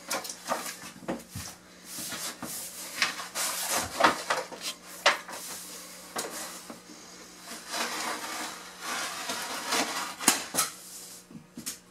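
Irregular rustling, scuffing and knocking as a roll of underlayment paper is handled and worked on a wooden subfloor, with a few sharper knocks near the end.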